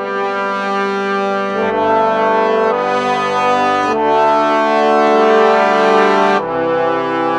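Yamaha MODX synthesizer playing a brass-like preset: full, held chords that change about every two seconds.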